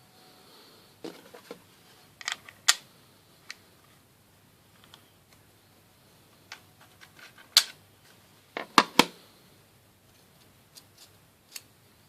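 Scattered sharp clicks and light knocks from a precision screwdriver set being handled: hard plastic parts and metal bits clicking together. The loudest is a quick pair of knocks about nine seconds in.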